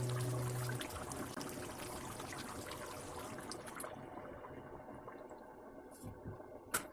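Crackly liquid noise from curry cooking in a pot, fading gradually, with a single sharp click near the end.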